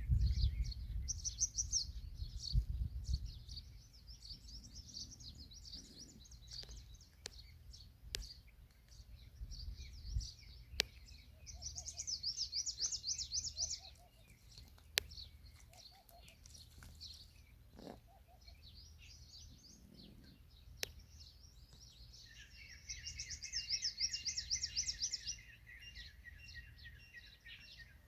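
Birds chirping and calling, with fast high trills twice and a lower run of rapid repeated notes near the end, over a low wind-like rumble.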